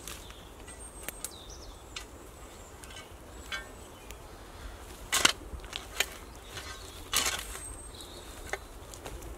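A spade cutting into dead bracken and the forest floor: two loud crunching strokes about two seconds apart, around halfway through and near the end, with lighter cracks of dry stems in between.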